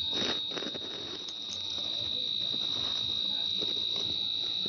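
Crickets trilling in one steady, continuous high-pitched tone.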